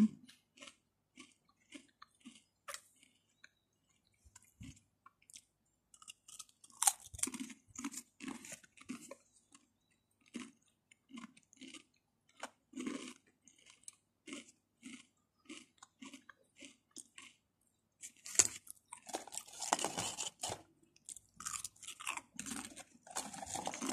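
Close-up chewing of crunchy ghost chili pepper potato crisps, with a steady crunch about twice a second. A louder bite comes about seven seconds in, and the crunching grows denser and louder for a few seconds near the end as a fresh crisp is bitten into.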